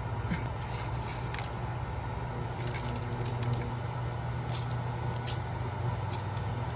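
Kitchen utensils clinking and scraping lightly against cookware, a few scattered clicks over a steady low hum.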